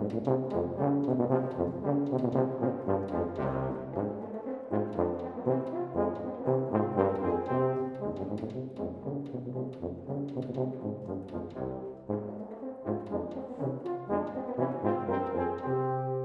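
Brass quintet of two trumpets, French horn, trombone and tuba playing a fast passage of many short, quickly changing notes. It begins right after a brief pause, and near the end the tuba holds a long low note.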